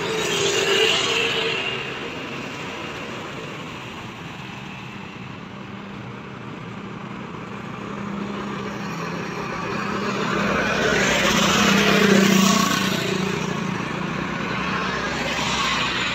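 Road traffic passing close by on a highway. A car goes by about a second in. Then a heavy vehicle's engine hum and tyre noise build and pass loudest around twelve seconds, with another vehicle, a motorcycle, passing near the end.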